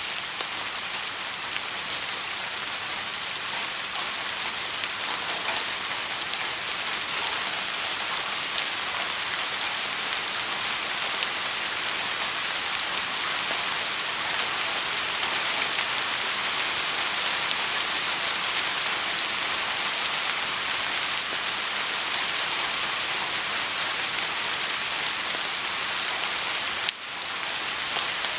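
Steady soft rain: a dense, even hiss of many falling drops with scattered single drop ticks, briefly dipping in level near the end.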